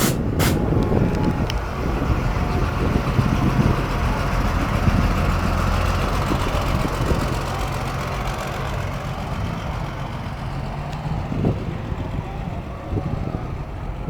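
Steady low rumble of a car, with outdoor background noise.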